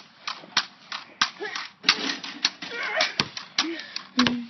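Pogo stick bouncing on pavement, a sharp clack of the spring and foot on each landing at about three bounces a second.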